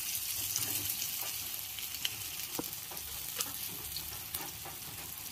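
Gram-flour-battered water lily flower fritters frying in oil in a wok: a steady sizzle with scattered pops and crackles.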